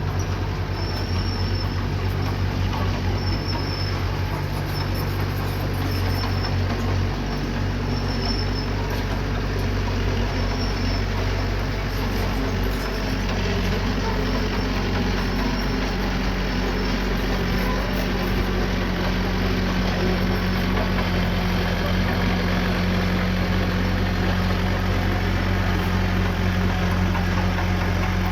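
Diesel engine of a small bulldozer running steadily under load, its pitch shifting a couple of times as it works. A faint high chirp repeats about once a second in the first ten seconds or so.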